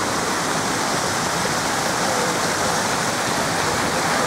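Steady rush of falling and splashing water, an even hiss with no breaks.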